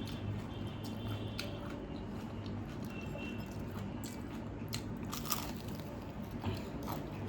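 A person chewing and biting food, with a few short crisp crunches a little past the middle, over a steady low hum.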